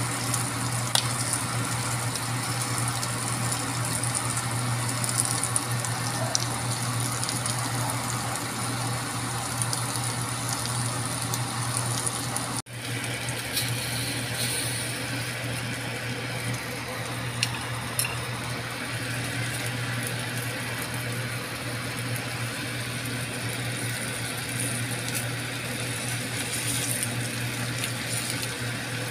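Mussels in their half shells sizzling on a hot grill pan, a steady hiss over a constant low hum, with a few faint clicks. The sound drops out for a moment about halfway through and then carries on.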